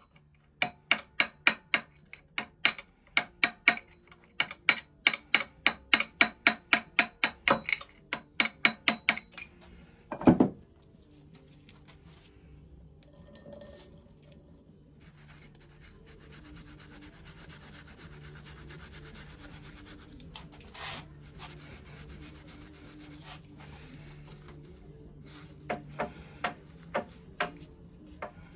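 Hammer tapping an aluminium drift against a stuck magneto gear on a 1921 Lister TM engine. There are quick, ringing blows about three a second for nine seconds, then one heavy thud, then a stretch of quieter scraping and handling, and a few more taps near the end.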